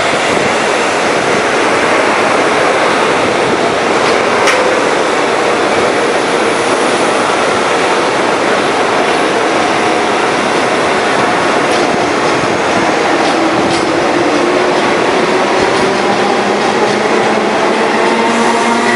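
CPTM Série 5000 electric multiple unit (Francorail/MTE/Cobrasma) rolling along the track with steady wheel-on-rail noise and one sharp click about four seconds in. In the last several seconds a whine rises slowly in pitch as the train picks up speed.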